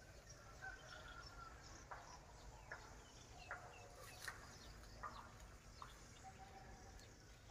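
Faint clucking of chickens, with a few soft clicks and short chirps in near silence.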